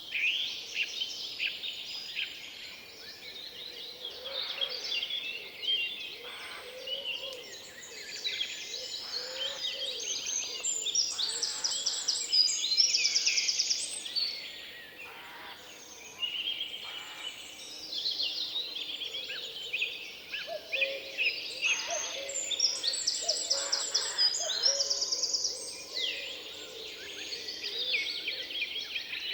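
Several songbirds singing at once in woodland, overlapping trills and quick chirps, loudest about halfway through.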